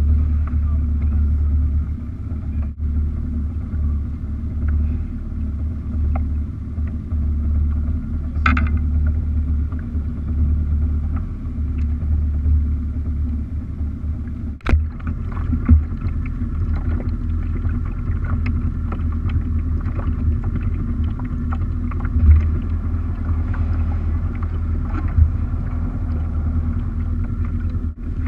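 An engine running steadily with a low, even rumble, broken by a few sharp knocks, the strongest about halfway through.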